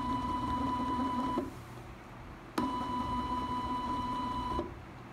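NEMA17 stepper motor driving a 3D printed two-stage cycloidal gearbox, whining at a steady pitch. It stops about a second and a half in, starts again abruptly about a second later, and runs for about two seconds before stopping again.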